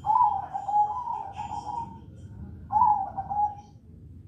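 Zebra dove (perkutut) cooing: a long phrase of low, pulsing coo notes for about two seconds, then a shorter phrase a little before the three-second mark.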